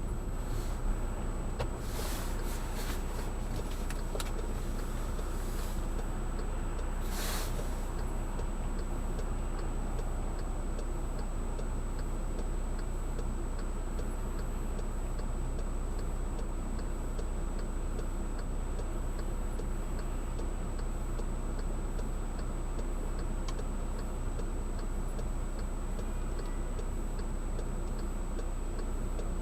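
Inside a Volkswagen GTI's cabin, a steady run of even ticks, typical of the turn-signal relay, over the car's steady low engine and road hum. Two brief hissing sounds come about two and seven seconds in.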